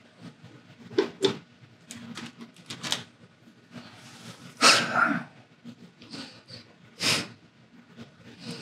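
A man sniffing perfume on his wrists: a long, loud sniff through the nose about halfway through and a shorter one about two seconds later, with a few small clicks and rustles before them.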